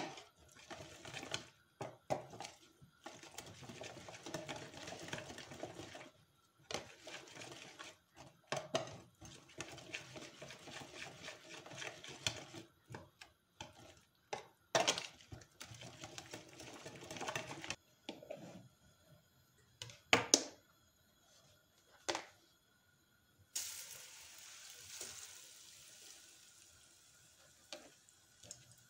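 Kitchen utensil work in a bowl: long stretches of scraping and stirring with short pauses and a few sharp clinks or knocks. A steady hiss starts about two-thirds of the way through.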